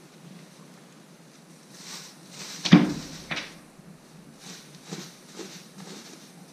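A ewe in labour shuffling and nosing through straw bedding, with faint rustling throughout. A sharp thump comes a little under three seconds in, followed by a lighter knock, and a few soft knocks follow later.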